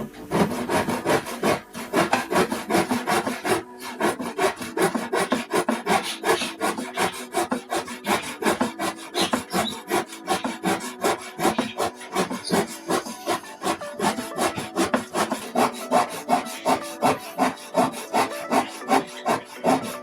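Wood being sawn by hand: steady, rhythmic back-and-forth saw strokes, about two to three a second.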